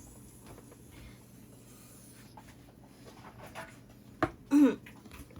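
Faint rustling and sliding of trading cards being handled, followed near the end by a sharp click and a short pitched vocal sound.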